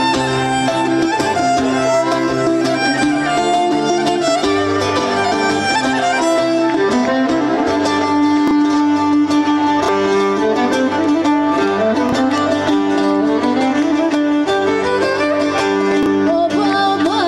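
Live Greek island folk music: a violin plays the melody over a plucked, strummed lute accompaniment, at a steady, lively dance tempo.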